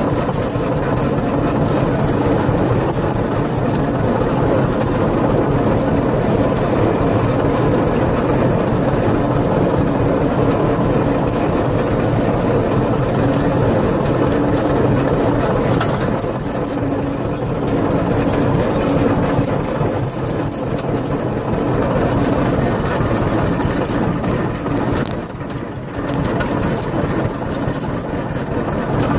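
Tractor engine running steadily while towing a loaded manure spreader across a field, with a constant engine hum. It eases slightly for a moment near the end.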